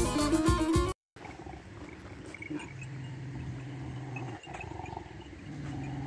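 Music that cuts off about a second in, then a Central Asian Shepherd (Alabai) dog growling low and steady: two long growls about a second apart.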